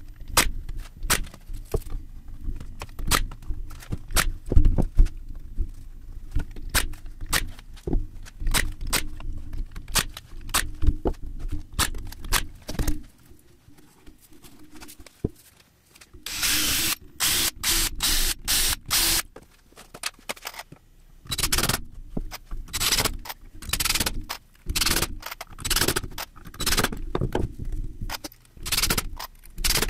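Hand work on a plywood box with small tools: a run of sharp clicks and knocks, then about halfway through a brief noisy stretch followed by a string of short scraping bursts, a little under two a second.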